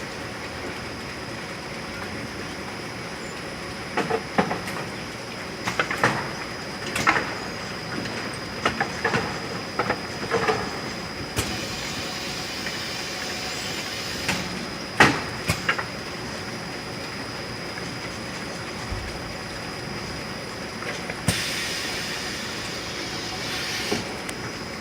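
Factory production conveyor line running: a steady mechanical hum with a thin high whine, broken by irregular sharp metallic knocks and clacks, clustered through the middle of the stretch.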